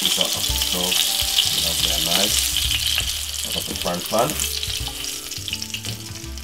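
Oil sizzling and crackling in a frying pan around halved frankfurters, with metal tongs scraping against the pan as the pieces are lifted out. The sizzle dies down a little near the end.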